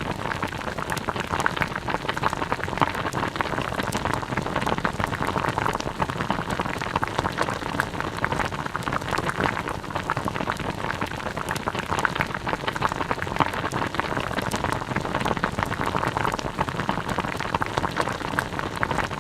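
A pot of liquid simmering at a steady boil, bubbles popping in a dense, continuous bubbling (guts-guts).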